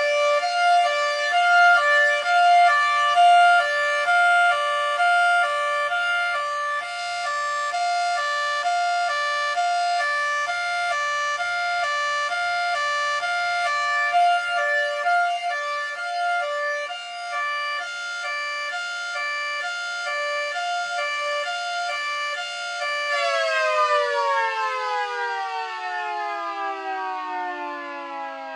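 Miniature model 3T22 siren sounding a two-tone hi-lo signal, switching quickly back and forth between a high and a low pitch. About 23 seconds in the alternating stops and the siren winds down, its pitch falling steadily.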